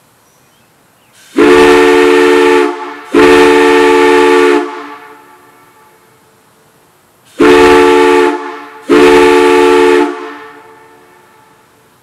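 Brass chime whistle blown on compressed air: four blasts in two pairs, each about a second long. Each blast is a steady chord of several notes sounding together and stops cleanly.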